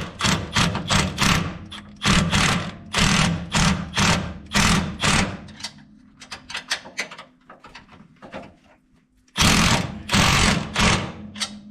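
Handheld power tool running in short pulsed bursts, driving a bolt through a home-made fixture to draw a rivet nut tight into the car's steel frame. A quick run of bursts for several seconds, a quieter pause, then another loud run near the end.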